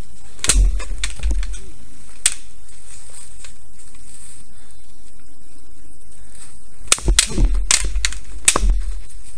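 Bamboo kendo shinai clacking against each other and on armour: a few sharp cracks about half a second in and again near two seconds, then a quick flurry of strikes in the last two and a half seconds.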